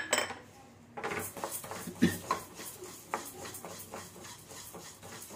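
Wooden spatula stirring and scraping split moong dal around a steel kadai as the dal is dry-roasted, in irregular scrapes and knocks starting about a second in.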